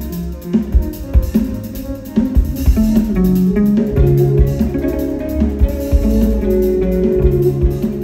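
Live rock band music: plucked guitar and bass lines over a drum kit.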